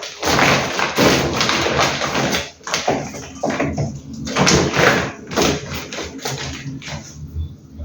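Groceries being handled and unpacked: irregular crinkling and rustling bursts, like plastic bags and produce being moved about, with a few taps.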